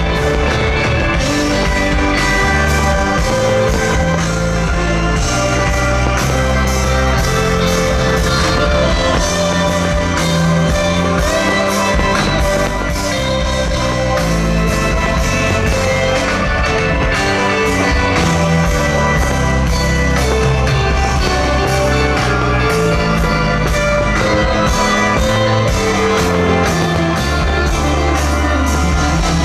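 Background rock music with guitar, loud and steady throughout.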